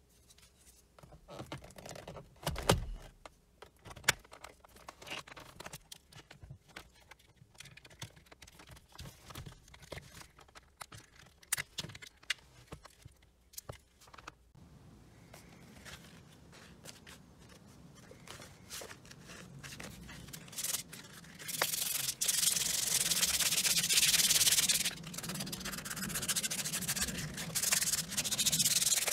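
Sharp clicks and knocks of plastic trim and clips as a shift surround is pried out with a plastic trim removal tool. From a little past twenty seconds in, a plastic trim part is hand-sanded with sandpaper: a steady scrubbing, louder than anything before it.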